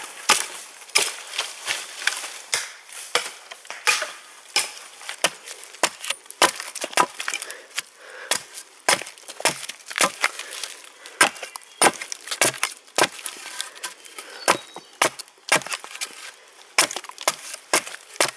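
Hatchet carving a point onto a wooden stake: a series of sharp wooden chops, roughly two a second, with chips splitting off.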